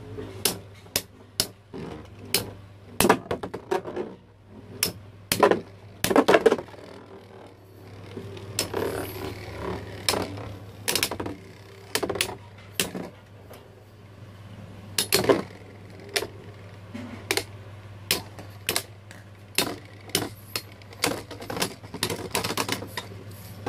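Infinity Nado spinning tops with metal battle rings clashing in a plastic stadium: sharp clacks at irregular intervals, sometimes in quick clusters, as the tops collide. A low steady hum runs underneath.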